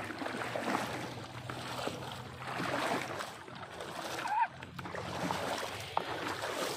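Water sloshing and splashing as someone wades through shallow floodwater, in uneven surges. A brief high note stands out about two-thirds of the way in.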